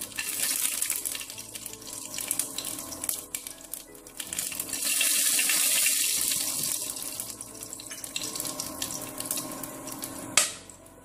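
Whole spices sizzling and crackling in hot mustard oil, a steady hiss with fine pops that swells louder in the middle. A single sharp click near the end.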